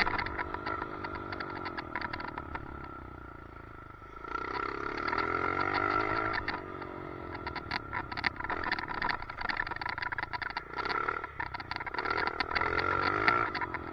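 Dirt bike engine revving up and down as it is ridden, picked up by a helmet chin-mounted camera. Under it are a steady high whine and rapid clicking and rattling, the weird noise the rider puts down to a chin mount that needs fixing.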